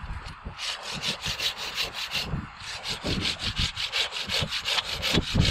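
Hand saw cutting through wood with fast, even strokes, about six a second, starting about half a second in and broken by a short pause a little after two seconds. This is the rough pruning of a freshly dug small-leaf hải châu tree.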